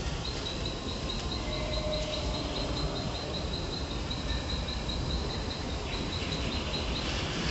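An insect chirping in a high, even pulse about four times a second, stopping shortly before the end, over a steady low background rumble.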